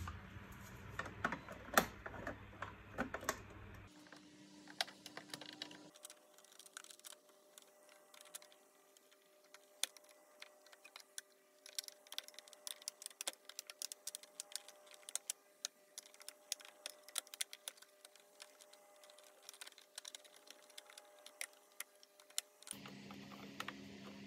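Irregular small clicks and taps of a screwdriver and fingers on the hard plastic housing of a Zelmer Cobra 2010 vacuum cleaner as its top control-panel cover is pried loose, loudest in the first few seconds, over a faint steady hum.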